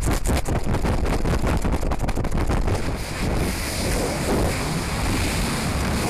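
Wind rushing and buffeting over the onboard camera's microphone as the rocket sustainer falls under its drogue parachute at about 95 feet per second. The rush is choppy and fluttering at first, then evens into a steady noise about halfway through.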